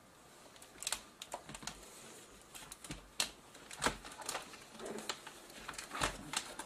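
Irregular clicks and knocks of plastic and metal as a Dell Inspiron 6400 laptop is handled on the bench: its lid shut and the machine turned over. The louder knocks come about a second in, near the middle and near the end.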